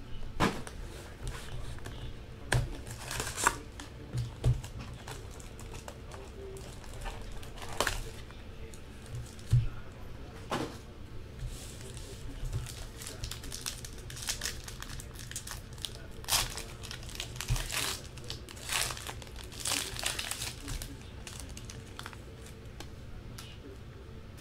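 Wrapping crinkling and tearing, with irregular rustles and sharp clicks of cardboard and cards being handled, as a sealed box of football trading cards is opened.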